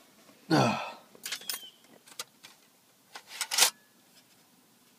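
Metal parts of a car stereo being handled: a short scrape falling in pitch about half a second in as the mounting sleeve slides off the chassis, then several sharp metallic clicks and clatters.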